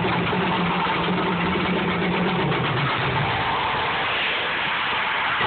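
Mirage volcano show erupting: a loud, steady roaring rumble of its gas flame jets. A low hum under the roar fades about halfway through as a big fireball goes up.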